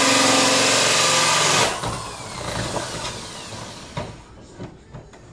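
Power drill driving a hole saw through a wooden wall: a loud, steady motor whine mixed with cutting noise that stops about a second and a half in. A few light knocks follow.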